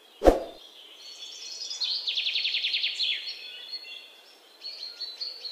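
Songbirds singing and chirping, with a rapid trill of about ten notes a second lasting around a second, two seconds in. A single sharp thump, the loudest sound, comes just after the start.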